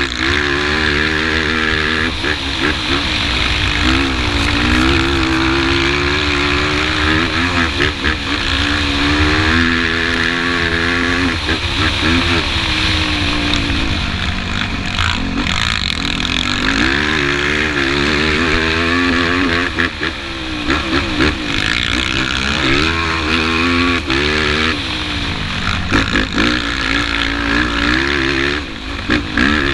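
Yamaha YFZ450 quad's single-cylinder four-stroke engine at racing pace, its pitch climbing and dropping again and again as it accelerates, shifts and comes off the throttle. Wind rushes over the microphone.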